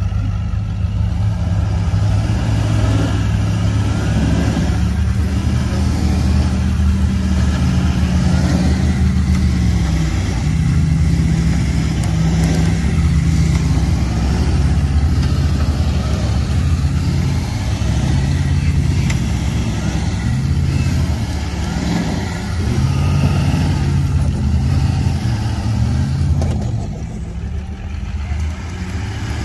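GMC Sierra HD pickup's engine working hard under load while towing a stuck motorhome out of soft sand, its revs rising and dropping back several times as the tyres spin and dig in.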